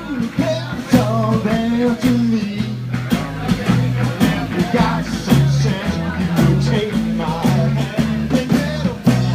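Live rock band playing: a drum kit with regular cymbal and snare strikes over a bass line that steps between notes, with guitar above.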